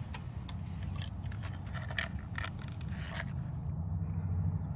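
Scattered light clicks and scrapes of new spark plugs and their packaging being handled, over a steady low hum.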